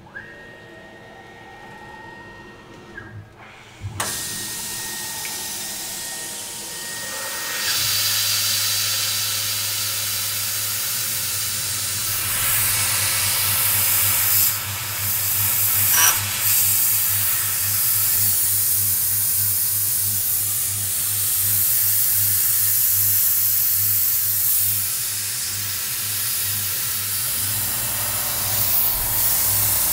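Tormach 440 CNC mill cutting hardened S7 tool steel with a 1/8-inch end mill, under the steady hiss of a Fog Buster mist-coolant sprayer that comes on about four seconds in. A high whine runs through the first several seconds, and from about eight seconds a low pulsing hum sets in as the cut goes on.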